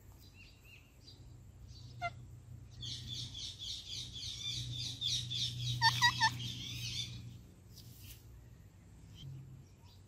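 Parrots chattering: a fast run of high chirps lasting about four seconds, with three louder squawks in quick succession near the middle of it.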